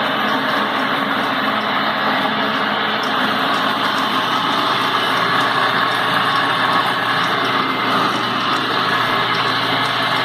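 Kalamazoo 610-W bandsaw running steadily, its motor and blade giving an even mechanical hum and whir.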